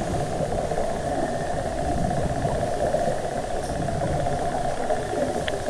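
Steady, muffled underwater noise heard through a camera's waterproof housing, a constant hiss with a low rumble.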